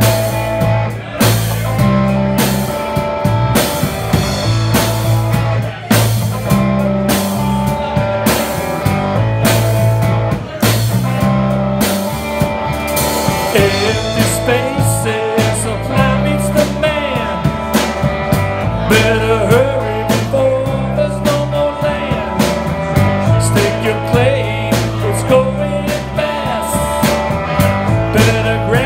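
Live rock band playing: electric guitar, bass guitar and drum kit keep a steady groove, and from about halfway through a man sings lead over it.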